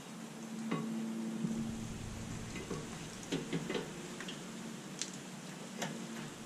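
Light metallic clicks and taps from hands working parts of a car's rear brake assembly: a quick cluster of clicks around the middle and a couple of single ticks near the end, over a steady low hum.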